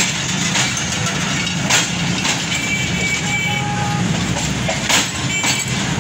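Passenger coaches of a train rolling past close by: a steady rumble of wheels on rail, broken by sharp clacks as the wheels cross rail joints, with a faint brief squeal in the middle.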